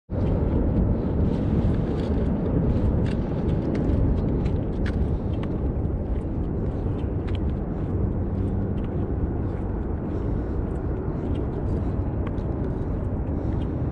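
Low, steady rumble of wind buffeting an action camera's microphone, with scattered faint clicks.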